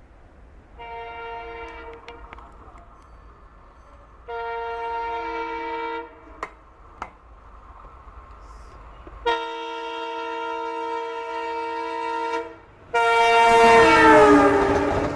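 ALCO WDG-3A diesel locomotive's multi-tone air horn sounding in four blasts, each louder than the one before as it approaches. The last, loudest blast drops in pitch as the locomotive passes, with the rumble of the train beneath it.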